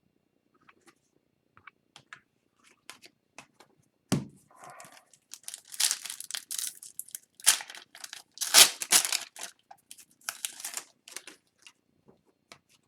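Plastic wrapper of a 2021-22 Upper Deck Series 1 hockey card pack being torn open and crinkled. Light clicks and ticks of card handling come first, then a thump about four seconds in, then several seconds of loud tearing and crinkling.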